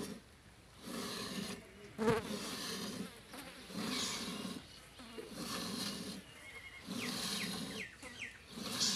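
Buffalo being milked by hand into a steel bucket: milk streams hiss into the milk already in the pail in a steady rhythm, about one burst a second. There is a single knock about two seconds in, and a few short chirps near the end.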